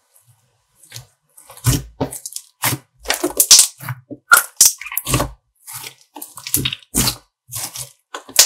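Hands squeezing and pressing a clear glitter slime, giving quick irregular crackles and pops. It starts about a second and a half in, after a quiet first second.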